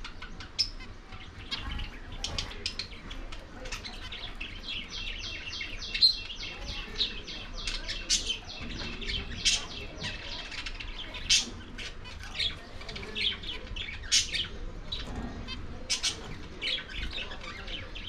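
Budgerigars chirping and chattering: short, sharp high calls scattered throughout, with a fast run of rapid chirps, about six or seven a second, starting about five seconds in.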